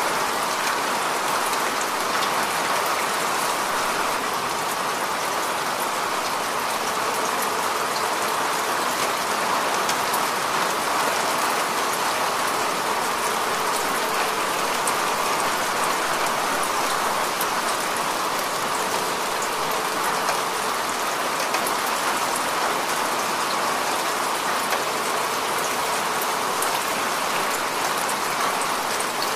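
Heavy rain falling steadily: a dense, even hiss with a fine patter of individual drops.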